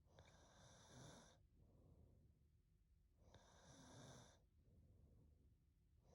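A sleeping woman snoring faintly: two breaths drawn in about three seconds apart, each followed by a softer breath out.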